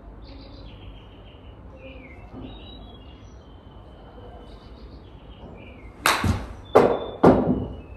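A golf iron strikes a ball off a screen-golf hitting mat about six seconds in, followed within about a second by two more loud, sharp smacks. Faint bird chirps sound before the shot.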